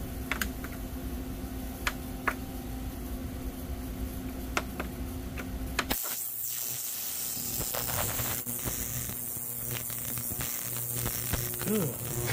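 Control-panel buttons of a Harbor Freight ultrasonic cleaner clicking as it is set. About halfway through the cleaner switches on: a steady electric buzz with a hiss from the water in its tank.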